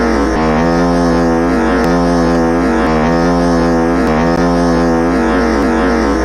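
Dubbed-in comedy fart sound effect: a loud, low buzzing blast drawn out in a run of notes about a second long, stepping up and down in pitch.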